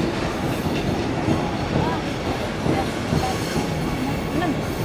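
Electric train moving through the station, a steady running noise of wheels on rails.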